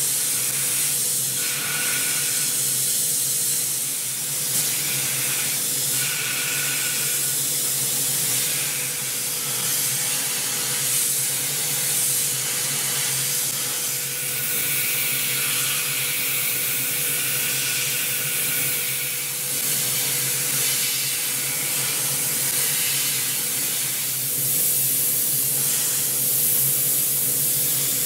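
CNC milling machine cutting tough pitch copper with a 2 mm NS Tool DHR237R radius end mill spinning at 12,000 rpm, sprayed with oil mist. A steady hiss of the mist spray sits over a low running hum and a faint steady tone.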